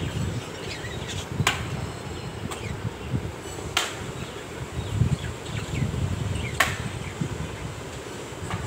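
Budgerigars chirping in short, scattered calls from their cages, with three sharp clicks and a low rumble underneath.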